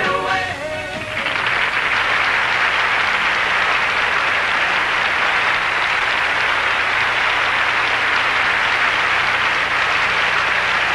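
The last sung notes of a rock song die away about a second in. Then an audience applauds, a steady, even wash of clapping.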